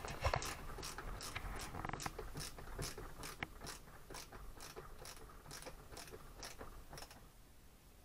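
Hand screwdriver ratcheting while driving the screws that hold a caster wheel onto a plastic shop-vac base: a run of even clicks, about three a second, growing fainter near the end.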